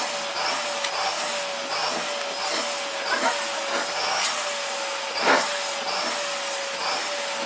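Vacuum cleaner running steadily as its nozzle is worked over a cat's fur, with the motor's pitch wavering slightly. One brief louder sound comes about five seconds in.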